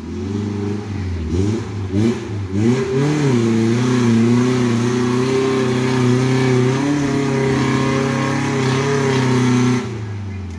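Suzuki Jimny 4x4's engine revving hard as it climbs a muddy slope: a few short blips of throttle, then the revs held high with the pitch wavering up and down, easing off near the end.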